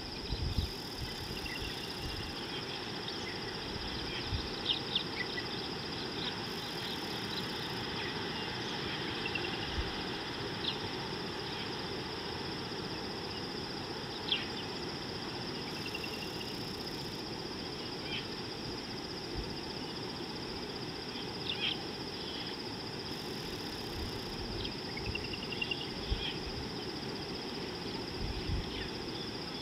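Outdoor bush ambience: scattered short bird chirps and calls over a steady high-pitched hum and a constant low rumble, with a few brief low thumps.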